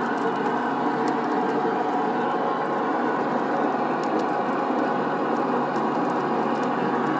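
RIDGID 535 threading machine running, its chuck turning ribbed rebar while the die head cuts a thread under a flow of cutting oil: a steady, even mechanical drone with faint scattered ticks.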